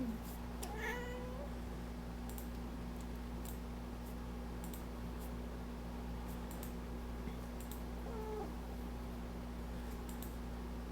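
Domestic cat meowing: one meow about a second in and a shorter, fainter one around eight seconds in, over a steady low hum and scattered faint clicks.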